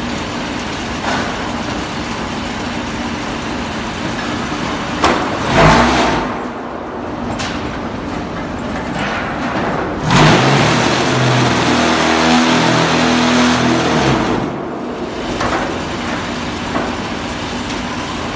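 Stone wool briquetting machine running: a steady mechanical hum, a short loud clatter about five seconds in, and a louder pitched drone for about four seconds from around ten seconds in.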